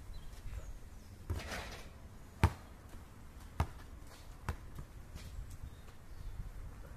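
A basketball shot passing through the net with a short rush, then the ball bouncing on an asphalt court: one loud bounce about two and a half seconds in, then two softer bounces about a second apart.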